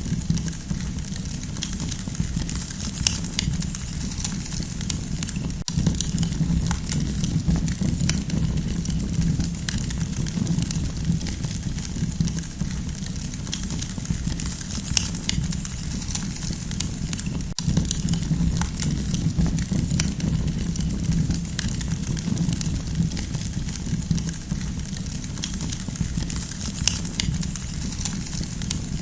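Campfire burning, with irregular crackles and pops over a steady low rumble.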